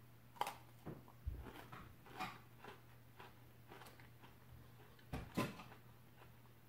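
Kettle Corn Oreo cookie being bitten and chewed: scattered short crunches and clicks over a low steady hum.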